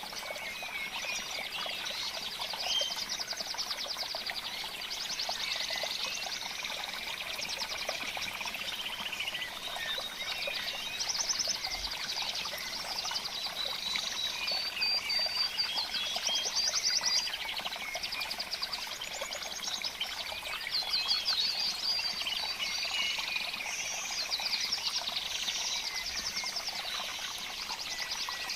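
Dense chorus of many small birds trilling and chirping together, continuous and overlapping, over a steady background hiss.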